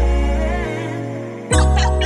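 Background music: an R&B-style track with a sung vocal line over a deep bass, with a fresh bass note coming in about one and a half seconds in.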